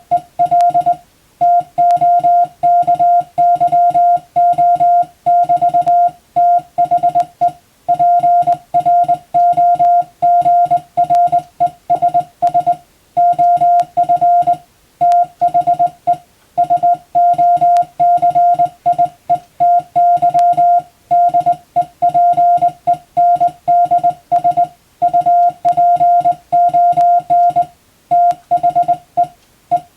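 Morse code (CW) sent by hand on a telegraph key, heard as a single mid-pitched beep switched on and off in quick dots and dashes. Short pauses every few seconds mark the spaces between words of a practice telegram.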